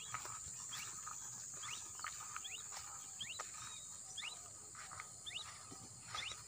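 Outdoor bush ambience: a steady high-pitched insect drone, with a bird's short rising chirp repeating about once a second.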